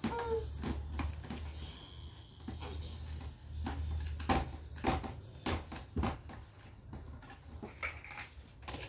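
Hard plastic parts of a kids' table knocking and clicking as its plastic legs are twisted into the tabletop and the table is handled: irregular sharp knocks, several a second at times, over a low steady hum.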